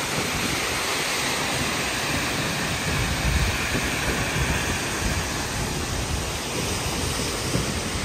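Seljalandsfoss waterfall pouring down close by, a steady rush of falling water and spray. From about three seconds in, gusty low rumbling from wind on the microphone joins it.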